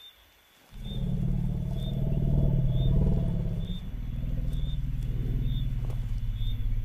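African elephant giving a deep, drawn-out rumble, a greeting. It starts suddenly about a second in, swells, dips briefly near the middle and carries on. A faint high chirp repeats about once a second.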